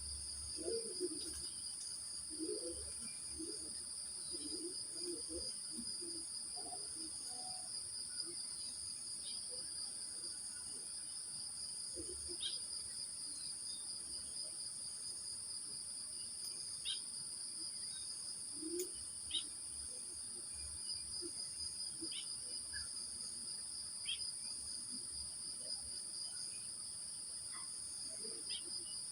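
Crickets trilling steadily in a chorus, two unbroken high-pitched trills layered together, with a bird giving short, sparse chirps every few seconds.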